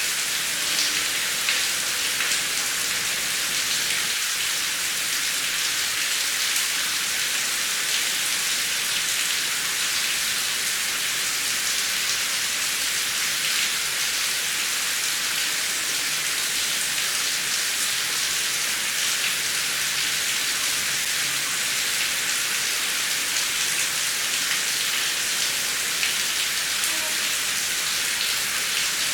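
Heavy rain falling steadily: an even hiss with the patter of separate drops.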